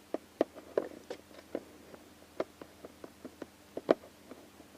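A series of light, irregular clicks and taps from hands handling small objects close by, the loudest about four seconds in.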